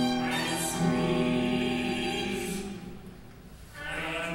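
An opera excerpt playing back: sung voices over a steady held low note. The music thins and drops in level about three seconds in, then swells back up near the end.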